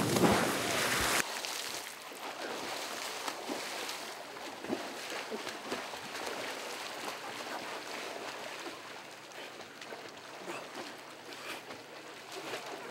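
A big splash as a man in a suit jumps into a swimming pool, cutting off abruptly about a second in. Then irregular splashing of swimming strokes in the pool.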